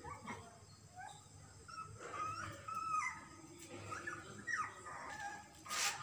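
Young puppies whimpering and squealing in a string of short, high, wavering calls while they nurse and crawl around their mother. A brief scuffing noise comes near the end.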